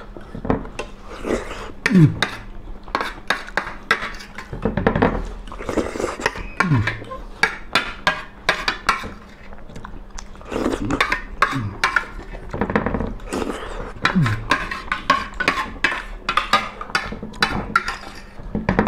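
Metal forks and spoons clinking and scraping on plates during a meal, with many quick, irregular clicks. A few short, low, falling sounds recur every few seconds.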